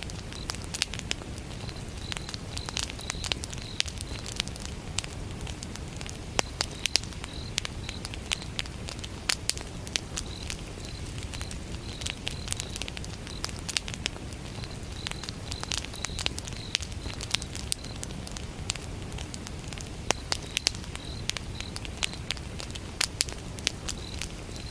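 Wood fire burning, with a low steady rumble and frequent sharp crackles and pops from the burning logs. Crickets chirp over it in runs of short high pulses, with pauses between runs.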